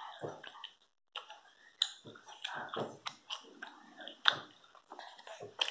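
A child chewing a soft, squishy chewy sweet with an open mouth, with a few sharp wet clicks now and then.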